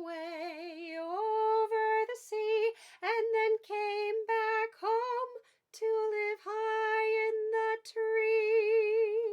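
A woman singing the closing line of a children's song unaccompanied, in short phrases, ending on a long held note with vibrato.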